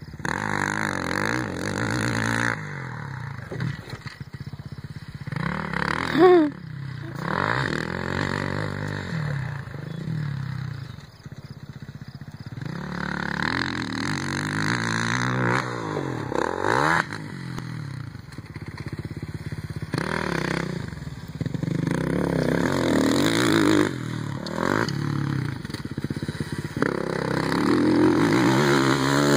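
Kawasaki KX450 motocross bike's four-stroke single-cylinder engine revving up and falling back again and again as it is ridden round a dirt track, with a brief louder burst about six seconds in. It grows louder near the end as the bike comes closer.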